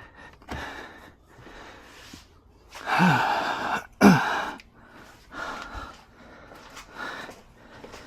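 A man's hard breathing and effortful grunts while pulling a part free, with two loud strained grunts falling in pitch about three and four seconds in.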